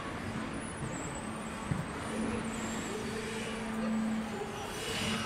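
Large exhibition hall background noise: a steady hum under an even din, with a faint high whine that drifts up and down in pitch.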